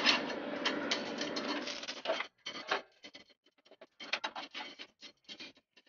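Coiled heating element with segmented white insulation being pressed by hand into the spiral groove of a cast-iron crepe plate: steady rubbing and scraping for about two seconds, then short scattered scrapes and clicks as it settles.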